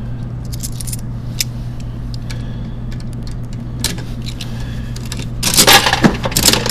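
Coins clicking into a coin-operated capsule vending machine, a few separate clicks, then a loud burst of rattling and clatter about five and a half seconds in as the machine dispenses a capsule. A steady low hum runs underneath.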